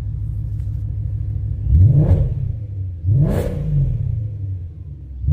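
BMW E92 M3's 4.0-litre V8 idling through Becker OBX headers and a full aftermarket exhaust, blipped twice by the throttle about two and three seconds in, each rev climbing and dropping back quickly.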